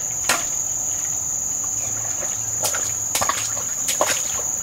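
Steady high-pitched insect drone, with a few short splashes of water as someone wades in a shallow stream.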